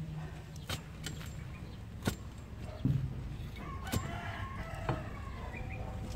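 Metal digging bar jabbed into the earth to dig up purple yam tubers, giving about six knocks and thuds roughly a second apart, the loudest a dull thud near the middle. Chickens cluck in the background.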